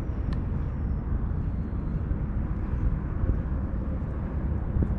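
Steady low outdoor rumble with no distinct event, and one faint click about a third of a second in.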